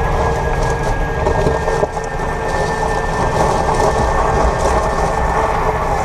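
Cabin noise of a 2022 Kia EV6 on the move: a steady rumble of road and tyre noise with a thin, steady high whine over it, the kind of drivetrain whirring the owner hears around 28–30 mph in Eco mode.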